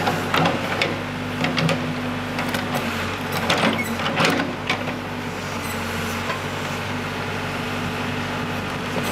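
An engine running steadily at idle at a street construction site, with several sharp knocks and clicks over the first half.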